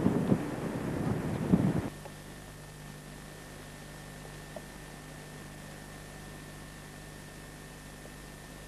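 Wind buffeting a camcorder microphone in uneven gusts, cutting off suddenly about two seconds in. After that comes a steady hiss with a faint low hum from the camcorder's recording.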